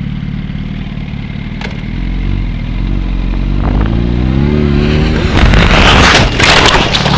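Motorcycle engine running steadily, then rising in pitch as the bike accelerates. About five seconds in it turns into loud scraping and clattering as the bike goes down and slides along the asphalt after its tire slips.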